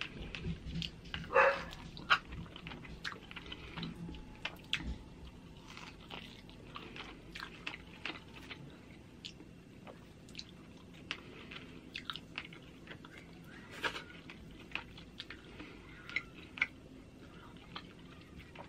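Close-up mouth sounds of someone chewing pork chop meat picked off the bone, with many small wet clicks and smacks. About a second and a half in there is one brief, louder high-pitched sound.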